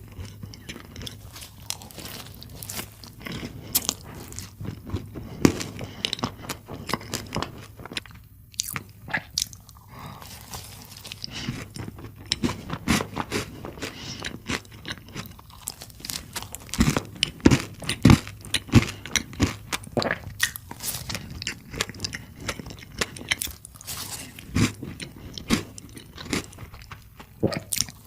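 Close-miked eating of chocolate caramel profiteroles: repeated crunching bites and chewing, with sharp crackles throughout and the loudest cluster of crunches a little past the middle.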